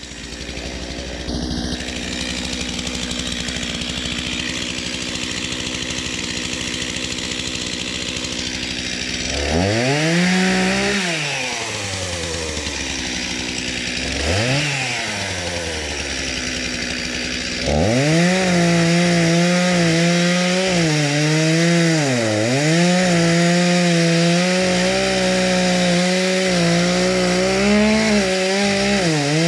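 Regular petrol chainsaw running at low speed, then revved up and back down twice. From about two-thirds of the way in it is held at full throttle cutting into a fallen tree trunk, its pitch dipping as the chain bites under load.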